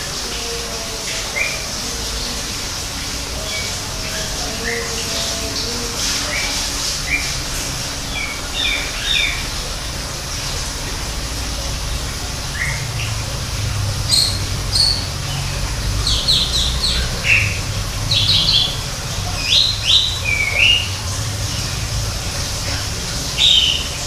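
Greater green leafbird (cucak ijo) singing: scattered short, sharp notes at first, then from about halfway a quicker, louder run of high chirps and slurred whistles, over a steady background hiss.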